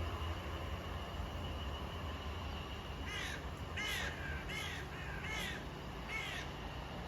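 A bird calling five times in quick succession with short, harsh calls, over a low background rumble that fades in the first couple of seconds.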